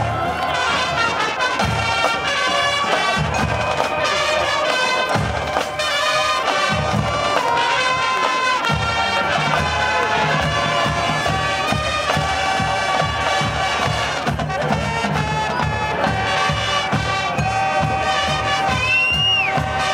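Marching band playing live: a brass ensemble over bass drums and percussion keeping a steady beat. A short high sliding note sounds near the end.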